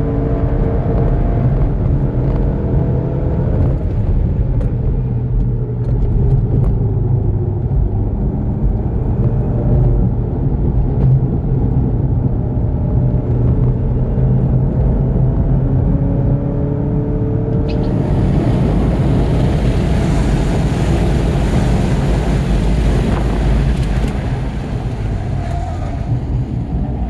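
VW GTI Mk7's turbocharged 2.0-litre four-cylinder engine running hard under load, its pitch climbing and dropping with throttle and gear changes over a heavy low drone. From about 18 seconds in, a loud rushing noise joins it.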